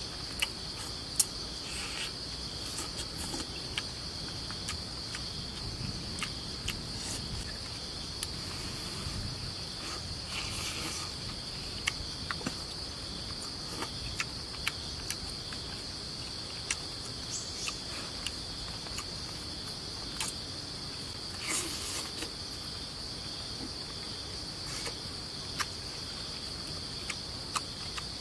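Steady high-pitched drone of insects, with scattered sharp clicks and ticks.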